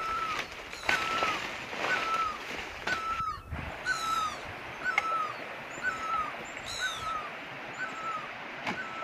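Leaves and undergrowth rustling and crackling for the first few seconds, over a short hooked animal call repeated evenly about once a second throughout. A higher, falling call comes in a few times.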